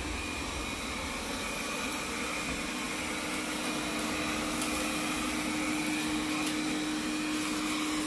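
Lambot A1 robot vacuum running on a hardwood floor: a steady whir of its suction fan and brushes over a constant hum, growing slightly louder toward the end.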